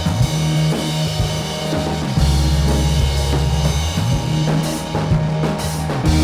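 Background music: a hip-hop instrumental with a steady drum-kit beat and a deep bass line.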